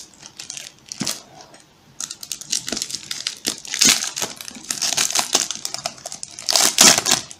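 Clear plastic film wrapped around a small cardboard box crinkling and crackling as hands handle it and pull at it, in an irregular run of crackles that is loudest near the end.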